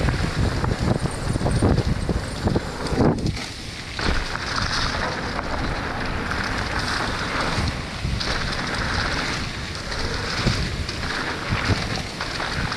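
Wind rushing over the action camera's microphone during a fast mountain-bike descent, with tyres rolling over dirt and many small knocks and rattles from the bike over bumps.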